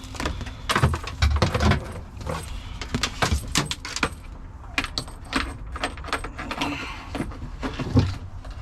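Irregular clicks, rattles and knocks of winch wiring being handled and fed through a knockout hole in the UTV's plastic panel.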